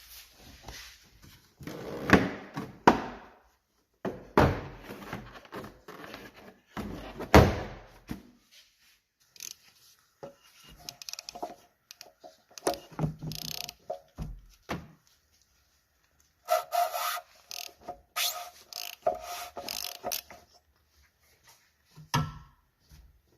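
Irregular knocks, thunks and scraping from parts and tools being handled during car maintenance, with a few louder clunks and short quiet gaps between them.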